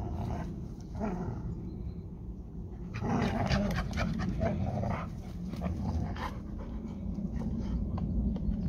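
A yellow Labrador retriever and a Hungarian vizsla growling and panting as they tug on a ball held between their mouths, with a louder, rougher stretch from about three to six seconds in.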